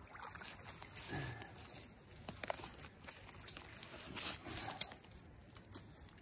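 Wet trapped beaver kit and its trap chain being hauled out of the water onto dry leaves: irregular rustling and scraping of the leaves, with a few sharp metallic clicks from the chain.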